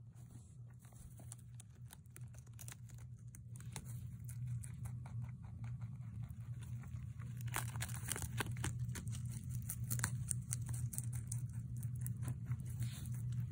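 Holland lop rabbit biting and chewing a fresh lettuce leaf: a run of quick, crisp crunching and tearing clicks that grows louder and busier in the second half, over a steady low hum.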